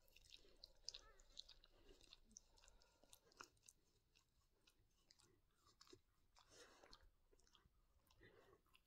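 Faint wet licking and chewing sounds as a whippet mother mouths and cleans her newborn puppy, in soft scattered clicks and slurps.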